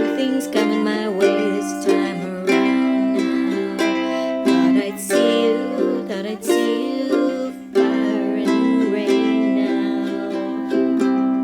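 Ukulele playing an instrumental passage without singing: a run of picked notes over ringing chords in a small room, with a chord left ringing near the end.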